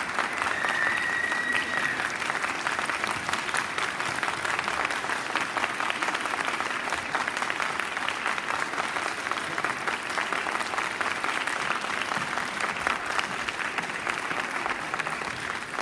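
Audience applauding steadily, with a brief high whistle-like tone about a second in.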